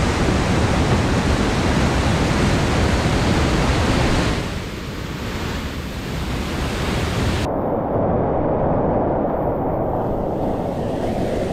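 Whitewater rushing loudly down a steep creek cascade, a steady noise of falling and churning water. About seven and a half seconds in the sound turns suddenly duller: the high hiss drops out and a lower, muffled rush remains.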